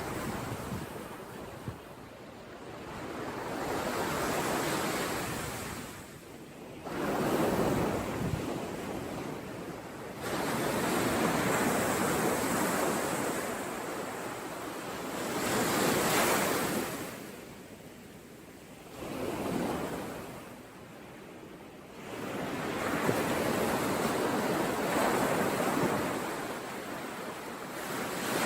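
Sea waves breaking and washing up on the shore, the surf rising and falling in repeated swells a few seconds apart.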